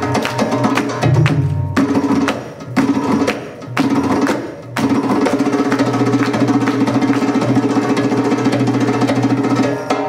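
Egyptian belly dance drum solo music on hand drums: fast strokes broken by several short pauses, then a long rapid drum roll through the second half that stops near the end.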